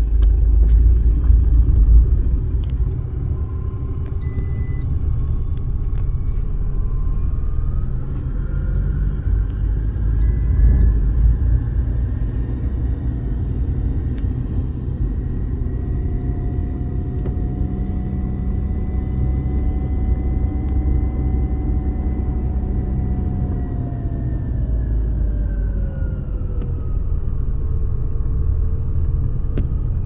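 Car driving along a road, heard from inside the cabin: a steady low rumble of engine and road noise, with a faint engine tone that rises slowly from about eight seconds in, holds, then falls again near the end. Three short high beeps come a few seconds apart.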